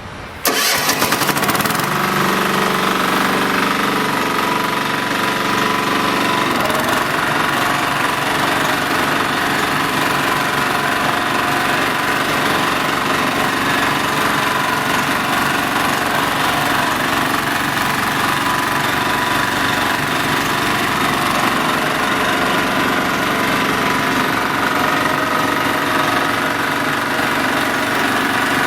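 Engine of a Fasta FVR850D ride-on vibratory road roller compactor running steadily; the sound cuts in suddenly about half a second in.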